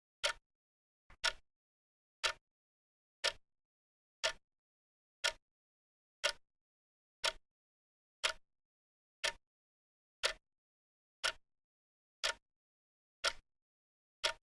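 Clock ticking steadily, one sharp tick each second with dead silence between, and a faint extra tick just before the tick at about a second in.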